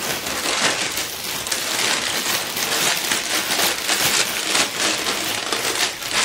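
Plastic packaging crinkling and rustling as it is handled, a dense, irregular crackle.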